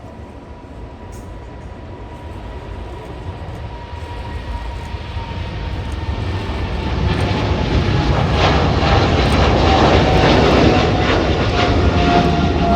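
Boeing 737 MAX 8 jet airliner's CFM LEAP-1B engines growing steadily louder as the plane approaches and passes close, with an engine whine slowly dropping in pitch and a rough rushing jet noise taking over after about seven seconds.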